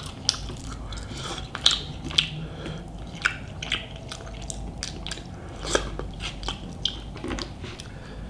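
Close-miked chewing of a mouthful of chicken burrito with rice: irregular wet mouth clicks and smacks, a few louder than the rest.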